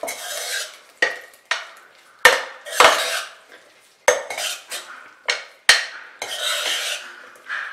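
Spoon stirring and scraping a thick, dry jackfruit and grated-coconut stir-fry in a metal pot, a run of irregular scrapes and knocks against the pot's sides and bottom.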